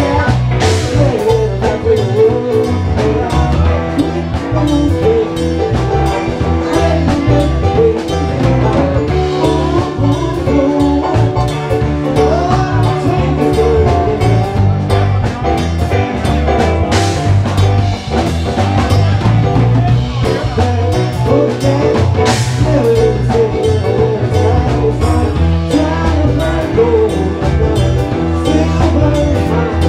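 Live band playing an upbeat jam on drum kit, electric guitar and keyboard, with cymbal crashes about a second in and twice in the second half.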